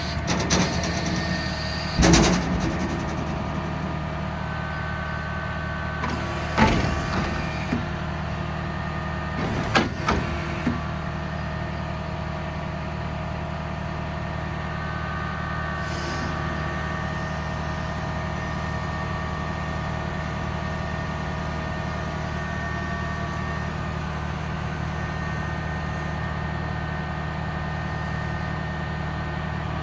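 Tractor-driven Massey Ferguson RB3130F Protec baler-wrapper running steadily, with a steady engine hum and whine, and a few loud sudden clunks from the machinery in the first ten seconds.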